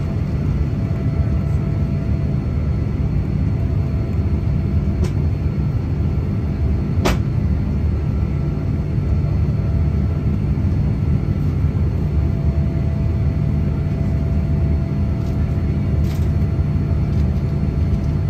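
Boeing 787-8 cabin sound during climb-out after takeoff: the engines and airflow make a steady low rumble with a faint steady tone over it. A single sharp click comes about seven seconds in.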